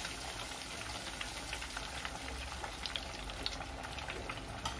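A very large breaded coxinha deep-frying in hot oil: a steady sizzle dotted with many small crackles and pops.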